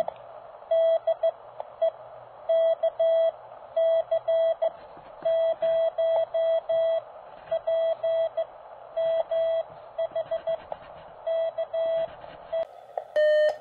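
Hand-keyed Morse code on a straight key: a steady tone of about 650 Hz sent as dots and dashes over a steady hiss, spelling out a call to WG0AT from KC0PMH. Near the end the hiss drops away and the tone carries on cleaner.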